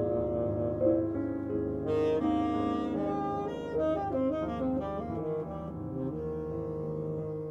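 Saxophone and piano jazz duo playing a slow ballad: piano chords ring under the saxophone line, which moves through a quicker run of notes in the middle and then settles onto long held notes.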